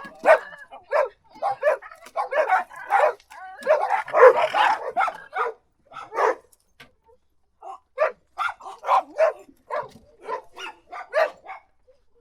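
A dog barking in short repeated barks, with a brief pause about seven seconds in, then a quicker run of barks.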